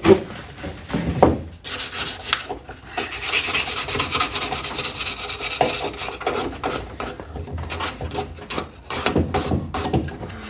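Sandpaper being rubbed by hand over an old bar clamp to clean it up: quick, rasping back-and-forth strokes, with a knock or two as the clamp shifts.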